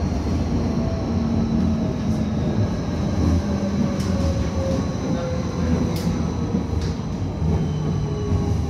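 Berlin U-Bahn train running through a tunnel, heard from inside the car: a steady low rumble of wheels on rails, with a motor whine slowly falling in pitch as the train slows, and a few sharp clicks.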